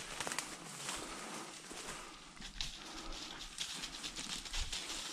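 Footsteps crunching and rustling through dry silver grass and brittle brush, an irregular run of crackles and swishes from stalks pushed aside underfoot.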